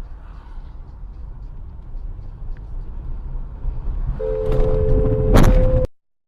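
Road and engine rumble inside a car driving on a wet road; about four seconds in a two-note car horn sounds and holds for about a second and a half, and a sharp crash of a collision comes near the end, just before the sound cuts off.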